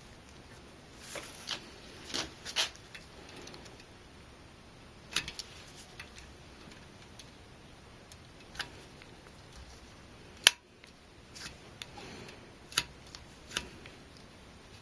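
Scattered small clicks and short scrapes from hands working stiff, dry thermal compound across a CPU and heatsink base. There are a few clusters near the start, a single sharp click about ten seconds in that is the loudest, and a few more clicks near the end.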